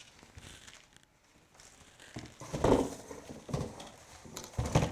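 Dull knocks and rustling from handling the packaging and parts of a boxed sewing machine during unboxing, the loudest thuds about two and a half seconds in and again near the end.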